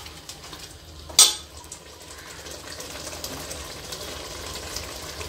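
A steel slotted skimmer knocks once against an aluminium pot about a second in. Then the mutton biryani masala simmers with a steady, faint bubbling that grows slightly louder.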